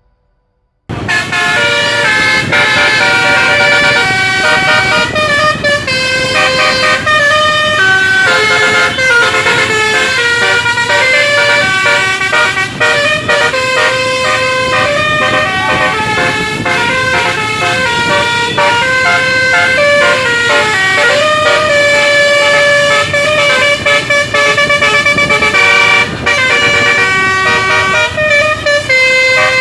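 Indonesian bus 'basuri' telolet horn, a set of electric trumpet horns, playing a quick tune of stepped notes with several tones sounding at once. It starts suddenly about a second in and keeps going without a break.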